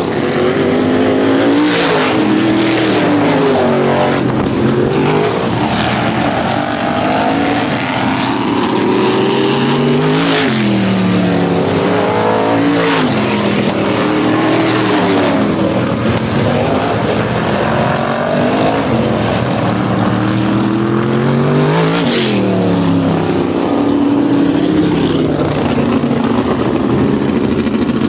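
Supermodified race cars' V8 engines running hard around a paved oval in practice, several cars at once. Every few seconds a car passes close, its engine note rising and then dropping sharply.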